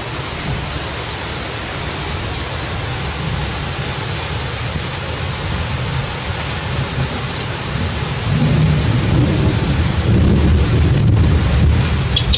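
Heavy rain falling steadily, with a low rumble of thunder swelling up about eight seconds in.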